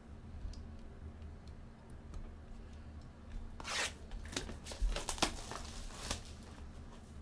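Trading-card packaging being torn open: a quiet start, then a run of tearing and crinkling noises from about three and a half to six seconds in.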